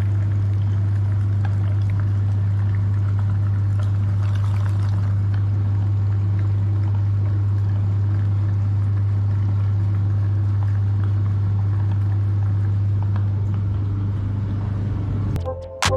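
Electric meat grinder running with a steady, loud low hum, with wet churning noise over it. The hum stops near the end as electronic music cuts in.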